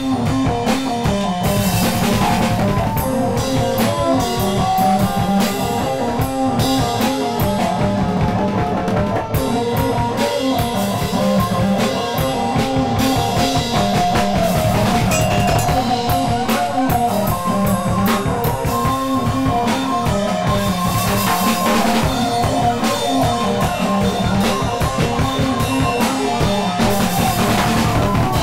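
Rock music with a drum kit keeping a steady beat under guitar.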